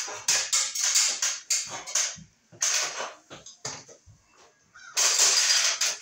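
Irregular knocks and scuffs of someone climbing down an aluminium ladder, with a louder noisy rush lasting about a second near the end.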